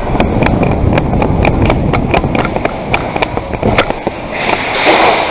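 Hurried footsteps with gear knocking and rattling, over a heavy low rumble of rubbing and wind on a body-worn camera. The knocks thin out after about four seconds, giving way to a hiss.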